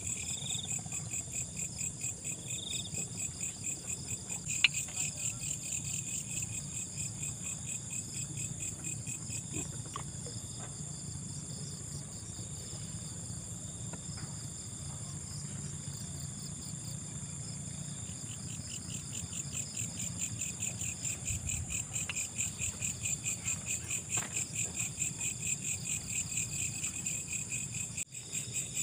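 Night insects, crickets, chirping in a steady rhythmic chorus, high-pitched, over a low steady hum. A single sharp click about five seconds in.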